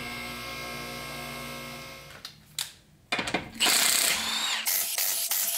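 A car lift's electric motor hums steadily for about two seconds, then fades. About three seconds in, a cordless impact wrench starts hammering loose the front wheel bolts, loud and rattling, with a whine from the spinning bolts, until the end.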